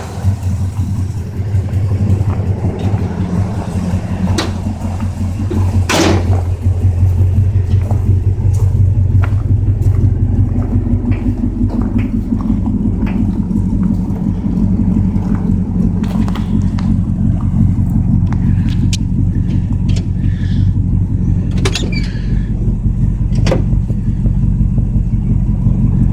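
1967 Ford LTD's V8 idling steadily after a cold start, with a few short sharp clicks over the running engine.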